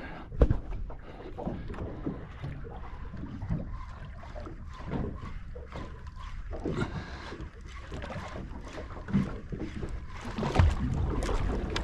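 Water slapping and sloshing against the hull of a small boat, in irregular strokes, with a sharp knock about half a second in.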